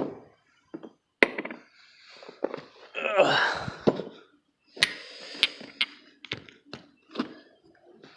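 Sharp clicks and knocks of metal parts being handled, with a brief scraping rustle in the middle, as a CNC-machined starter reduction gear cap is tried against a dirt bike's engine case.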